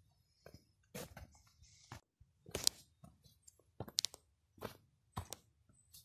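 Footsteps on a dirt forest trail, short crunching steps at a walking pace of about three steps every two seconds.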